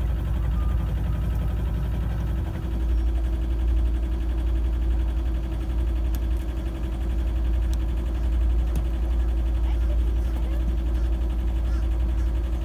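Boat engine running steadily under way: a low drone with a steady hum above it.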